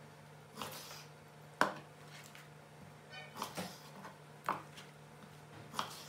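Kitchen knife cutting through raw chicken wings on a wooden cutting board: about six separate knocks of the blade on the board, spaced unevenly, over a faint steady hum.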